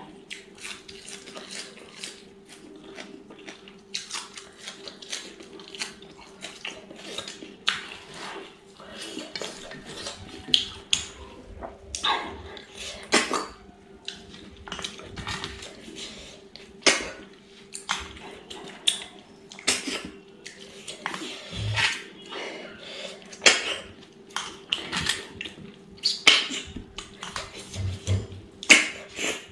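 Close-up eating sounds of a meal eaten by hand: chewing and mouth noises with many short, sharp clicks and clinks of fingers and snail shells on a steel plate. A faint steady hum lies underneath.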